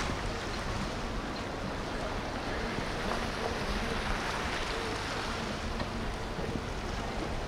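Motorboat engines running with a faint steady hum under the rushing of water and wind.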